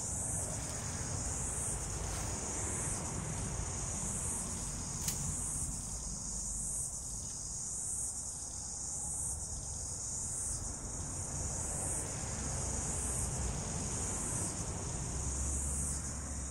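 Insects chirring steadily in a high-pitched chorus that swells and fades about once a second. A single sharp click sounds about five seconds in.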